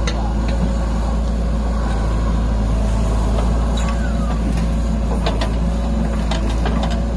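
Heavy diesel engine running steadily, a low drone with a few scattered clicks and knocks over it.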